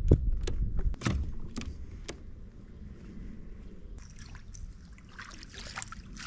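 A few sharp knocks and clicks in the first two seconds, then a hooked bass splashing at the surface near the end, the splashing growing louder.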